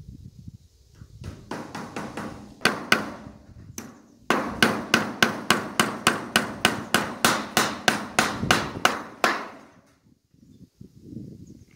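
Hammer blows on a fence being repaired: a few scattered strikes, then a steady run of about four strikes a second for about five seconds before stopping.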